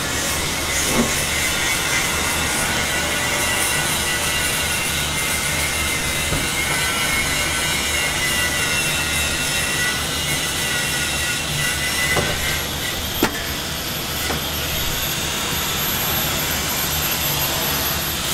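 Steady hiss over a low hum from a flat-top griddle and kitchen exhaust fan, with a few light knocks: one about a second in and two close together later on.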